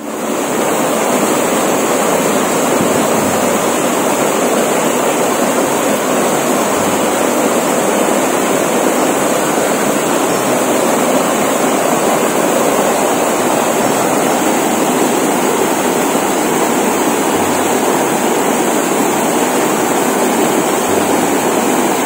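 Small waterfall pouring over a wide rock ledge into a pool: a steady, even rush of water.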